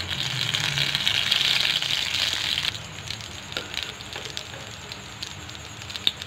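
Hot oil sizzling and crackling around breadcrumb-coated potato and egg balls deep-frying golden brown. The sizzle is loudest for the first couple of seconds, then drops to a lighter crackle with a few small clicks.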